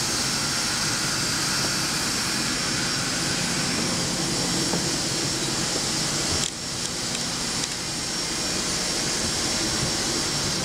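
Steady whine and rush of jet-type ground noise beside a parked Boeing 787-8 on the apron, with a high whining tone throughout. The level dips briefly about six and a half seconds in.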